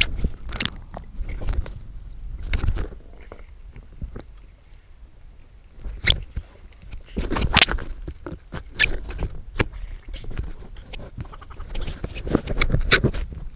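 Water sloshing and splashing around a camera held at the surface, with irregular knocks and splashes from handling it at the waterline and a low rumble underneath; busier in the last few seconds.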